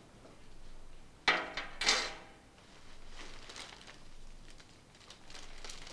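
A cellophane-wrapped bouquet being handled and rustled, with two short, louder crackles about a second and two seconds in.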